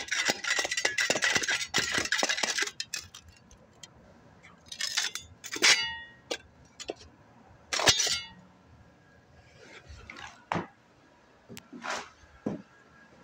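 Metal drywall tools scraping and clinking on concrete while being cleaned: a quick run of rasping scrapes for the first three seconds or so, then a handful of separate scrapes and clinks.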